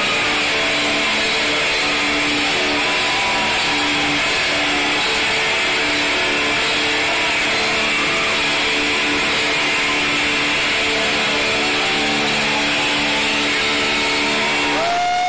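Thrash metal band playing live with distorted electric guitars and drums, so loud that the recording is overloaded into a dense, constant wall of noise. A short pitch glide rises and falls near the end.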